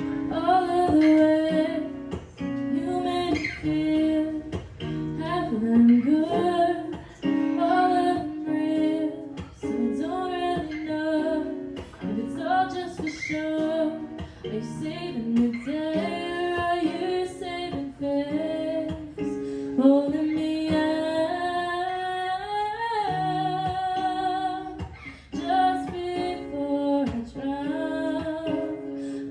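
A woman singing an original song to acoustic guitar accompaniment, performed live, with a long held note sung with vibrato about three quarters of the way through.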